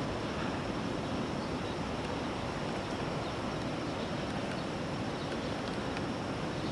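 Ocean surf washing on the beach as a steady, even rush of noise, with a low rumble of wind on the microphone.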